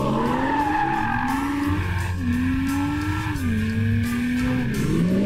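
BMW M240i's turbocharged 3.0-litre straight-six revving hard as the coupe drifts, its pitch climbing and falling back several times, with tyres squealing. A music track with a steady bass plays underneath.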